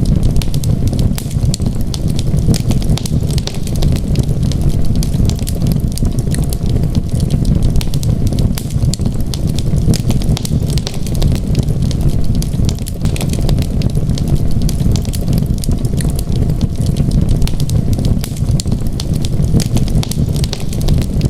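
Wood fire burning in a fireplace: a dense, steady crackle of small sharp pops over a constant low rumble of the flames.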